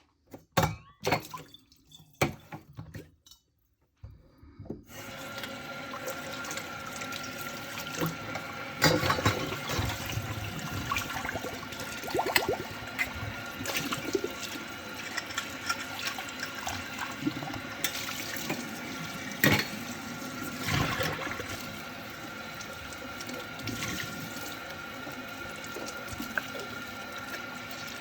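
A few knocks, then a kitchen tap is turned on about four seconds in and runs steadily into the sink while dishes are washed, with dishes clattering now and then. The water stops just before the end.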